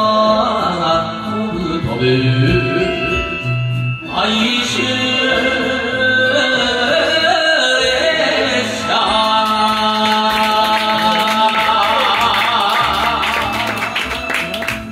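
A man singing a Japanese enka song into a microphone over a karaoke backing track, ending on a long held note with vibrato.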